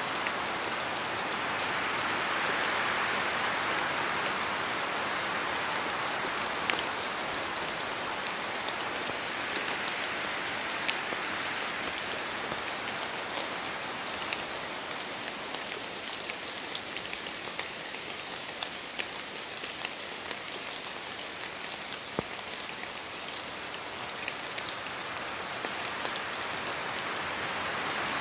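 Steady rain falling in a forest, a dense hiss with many individual drops ticking through it. The downpour swells in the first few seconds, eases through the middle and builds again near the end.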